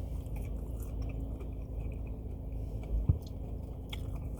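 Close-up chewing and biting of a chicken nugget dipped in honey mustard, with small wet clicks over a steady low hum, and one sharp thump about three seconds in.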